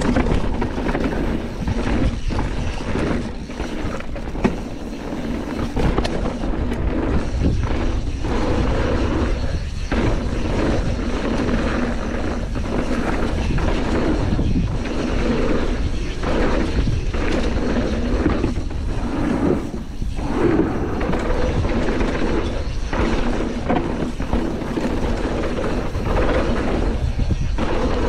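Raw chest-mounted action-camera audio of a Canyon Torque full-suspension mountain bike riding fast downhill on a dirt trail. A continuous rumble of wind and tyres is broken by frequent knocks and rattles from the bike as it goes over bumps.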